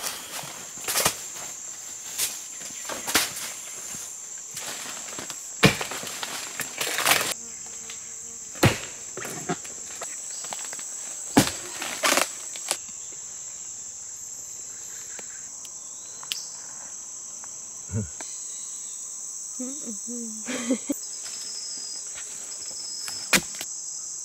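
An axe striking into a palm stump, about a dozen heavy chops at uneven intervals, coming closer together in the first half and thinning out later. Under the chops runs a steady high-pitched chorus of forest insects.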